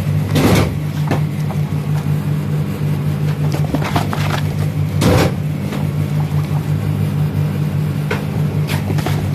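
Printed study booklets being handled and moved, their covers and pages rustling and knocking a few times, loudest about half a second and about five seconds in, over a steady low machine hum.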